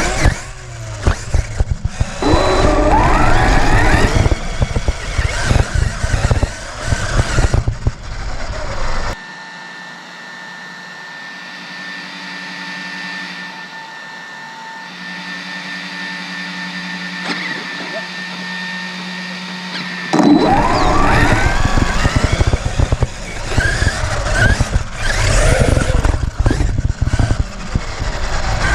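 Electric motor whine of a hobby-grade RC truck, rising and falling in pitch with the throttle over heavy rumble and rattle from driving on rough ground. From about nine seconds in to about twenty seconds the rumble drops away, leaving a quieter stretch of steady whining tones, after which the loud rising and falling whine and rumble return.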